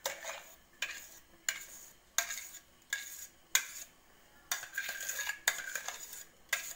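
Steel spoon scraping and knocking inside a stainless steel mixer-grinder jar as a thick ground paste is scraped out into a steel bowl: a string of short metallic scrapes and taps, with one longer scrape a little past the middle.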